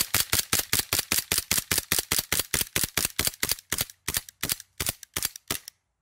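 G&G GPM1911 CP gas blowback airsoft pistol (a HiCapa 5.1) fired in rapid succession, about five shots a second, each shot a sharp crack with the slide cycling. After about four seconds the shots slow and weaken as the gas runs low, until the magazine is empty about five and a half seconds in.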